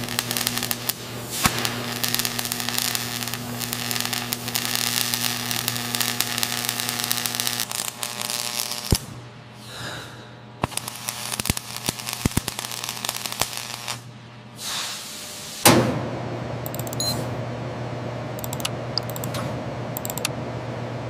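Welding arc crackling and sizzling over a steady electrical hum, in two long stretches with short gaps between. About three quarters of the way in, a sharp clank, then a steadier machine hum with scattered faint clicks.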